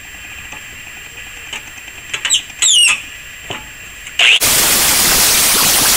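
Angle grinder with a cutoff wheel slicing through steel plate: a loud, steady rushing hiss that starts about four and a half seconds in. Before it, about two seconds in, come a few brief high squeals with falling pitch.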